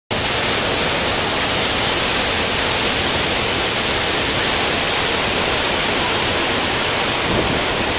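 A large waterfall heard up close: an unbroken, steady rush of falling water that sounds like continuous thunder.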